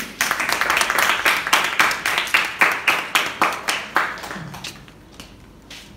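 A small audience applauding, the clapping fading away about four seconds in.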